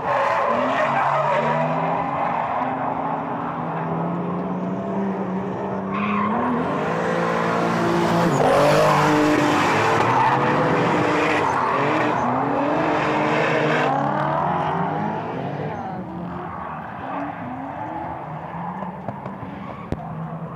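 Drift cars sliding through a corner, their engines revving up and down over and over while the tyres skid and squeal. It is loudest in the middle, as a car slides past.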